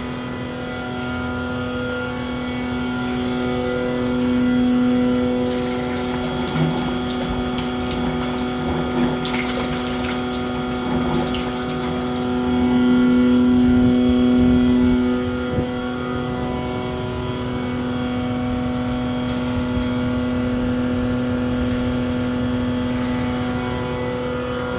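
Vacuum evaporation concentrator running under test: a steady machine hum with a strong fixed tone and several higher steady tones. A rushing hiss joins it for several seconds in the middle.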